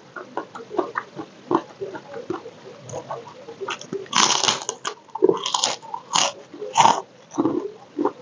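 Close-up mouth sounds of a person eating: wet chewing and lip smacks, then a run of loud crunches from about four seconds in as something crispy is bitten and chewed.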